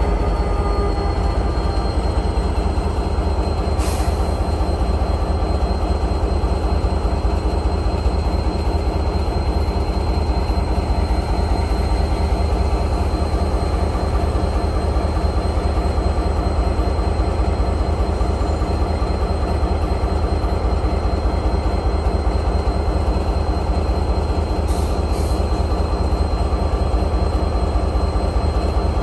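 Electric passenger train running along the track: a steady heavy rumble with a thin, high whine held throughout, and a couple of brief clicks, one about four seconds in and one near the end.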